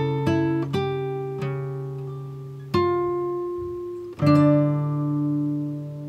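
Background music on acoustic guitar: single plucked notes and chords ringing out and slowly fading, with a fresh, louder note about three seconds in and another about four seconds in.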